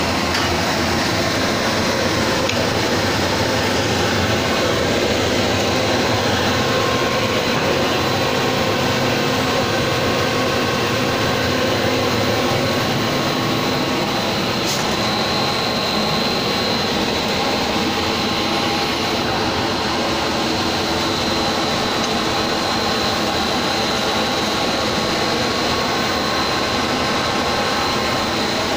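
LD blown film extrusion plant running: a steady machine noise of its air blower and drive motors, with a faint high whine held throughout.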